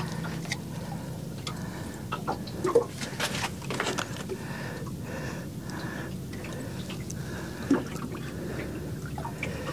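Water lapping and sloshing against the hull of a small boat, with scattered light clicks and ticks.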